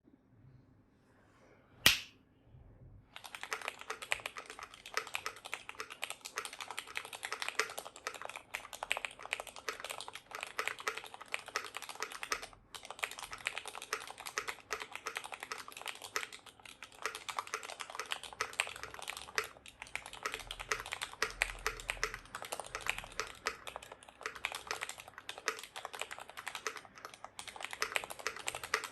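A single sharp click about two seconds in, then steady fast typing on a Cornetto 60% mechanical keyboard: lubed Cherry MX Retooled Black linear switches on an FR4 plate with GMK keycaps, a rapid stream of keystrokes with only short pauses.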